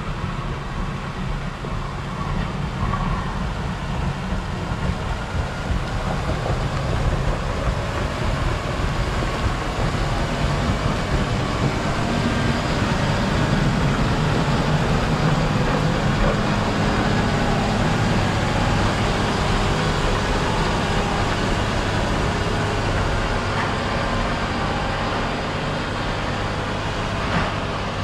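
Heavy diesel snow-removal machine working under load, its engine droning steadily while its steel blade grinds packed snow and ice off the road surface. The sound grows somewhat louder over the first third, and there is one sharp knock near the end.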